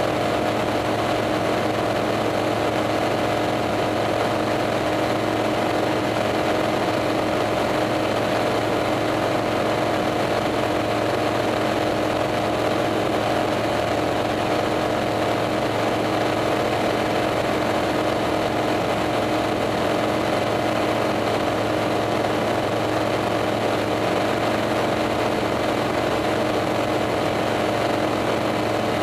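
Single-engine light aircraft's engine and propeller droning at a steady, unchanging pitch in flight, heard from inside the cockpit with rushing air behind it.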